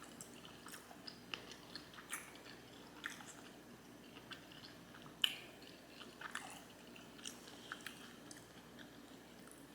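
A person chewing sushi rolls close to the microphone: soft wet mouth clicks and smacks at irregular intervals, one louder smack a little past the middle.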